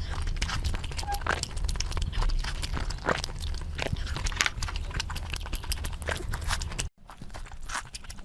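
Close-up chewing and biting: quick wet smacks and crunchy clicks of food in a mouth over a low hum. The sound cuts out abruptly about seven seconds in and resumes with fainter clicks.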